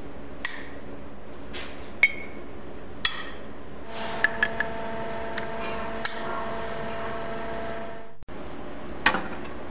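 Metal clicks and clinks from steel locking pliers being clamped onto metal stock and released: about eight separate sharp clicks, one near two seconds ringing briefly, over a steady hum.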